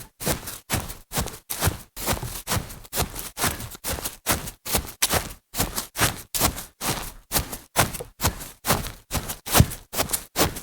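Footsteps of sneakers on grass at a fast, steady pace, about three steps a second, each step a soft brushing thud.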